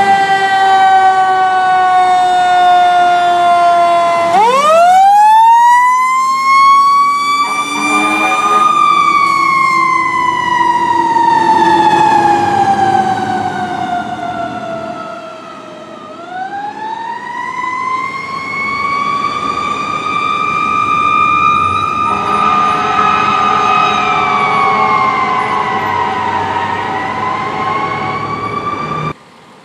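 Fire ladder truck's siren wailing loudly. It winds up slowly and then coasts down in long glides, twice over. A steady horn tone joins briefly around eight seconds in and again about two-thirds of the way through.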